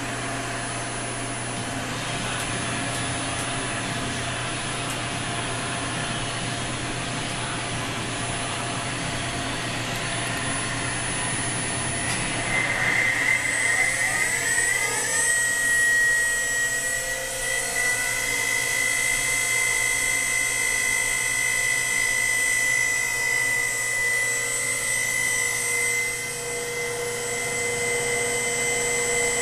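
Anca Fastgrind 5DX CNC tool and cutter grinder running with a steady machine hiss; about halfway through the grinding spindle spins up, a rising whine that levels off into a steady high-pitched whine.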